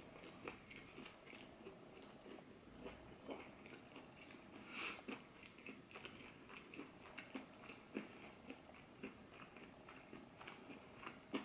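Faint chewing of a breaded boneless chicken wing close to the microphone: soft, irregular crunches and mouth clicks about once or twice a second, with a louder crunch about five seconds in.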